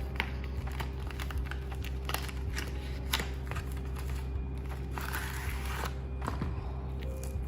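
Objects being handled by hand: scattered light clicks and taps, with a brief rustle about five seconds in, over a steady low hum.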